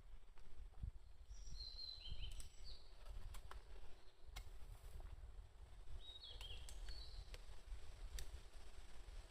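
Faint bird chirps: two short runs of high notes that step downward, about a second and a half in and again about six seconds in, over a low rumble with a few light clicks.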